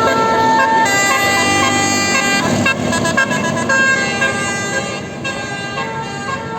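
Tour bus telolet horn, a Basuri multi-tone air horn, playing a tune: several horn tones sound together and step from note to note, with a run of quick warbling notes in the middle.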